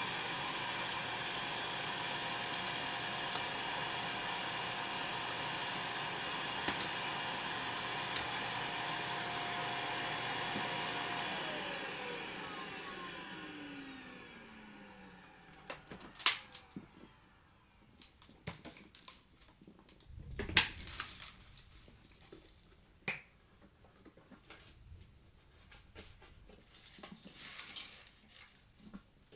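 Vacuum cleaner motor running steadily, then switched off about eleven seconds in, its whine falling in pitch as the motor spins down. Then scattered clicks and knocks as the machine is handled, the loudest a thump about twenty seconds in.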